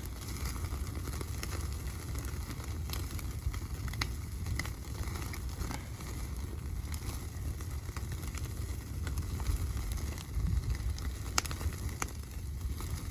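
Wood fire crackling, with scattered sharp pops and snaps over a steady low rumble.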